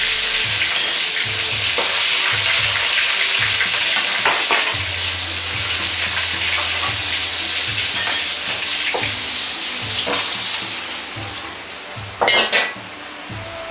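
Parboiled bamboo shoots and carrots sizzling steadily in hot oil in a wok while being oil-blanched, the sizzle dying down after about eleven seconds. Near the end come two loud metal clanks as the wok is lifted off the burner.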